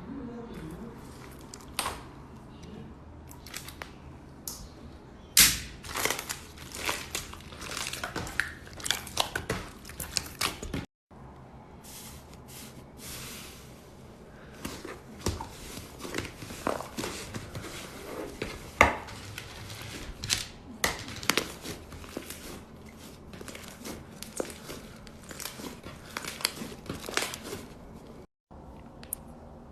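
Slime being worked, giving an irregular run of sharp crackles and pops. The sound cuts out briefly twice, about a third of the way in and near the end.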